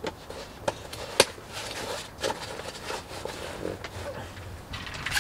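Camping gear being handled and packed by hand: rustling with scattered light knocks and clicks, the sharpest about a second in.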